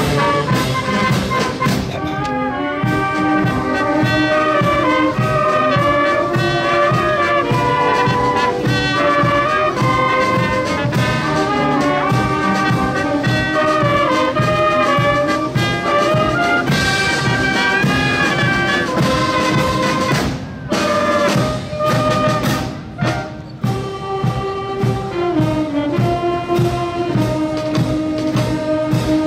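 Outdoor wind band of brass and woodwinds (trumpets, trombones, tubas, clarinets, flutes, saxophones) playing a tune together, with a couple of brief breaks between phrases about two-thirds of the way through.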